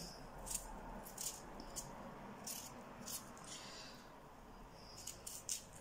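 Faint, short scraping strokes of a small knife peeling the skin off a potato, several at irregular intervals, with a quick cluster near the end.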